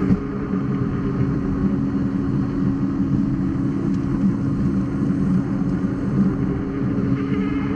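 Begode EXN HS electric unicycle's hub motor whining at a steady pitch while cruising, over a dense low rumble of tyre on asphalt and wind. Near the end the whine starts to rise in pitch as it speeds up.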